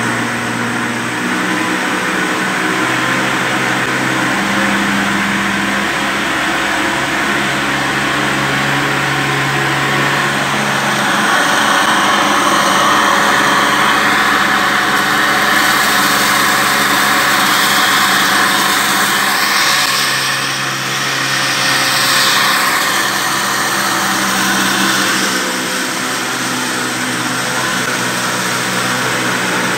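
A belt-driven wheat flour mill (atta chakki) powered by a 20 HP electric motor running at speed, with a steady machine hum. The noise grows louder and harsher from about eleven seconds in until about twenty-five seconds in.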